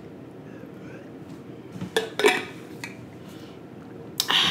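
Drinking from an insulated metal water bottle: a few quiet swallows, then a short, louder clatter near the end as the bottle is set down on the table.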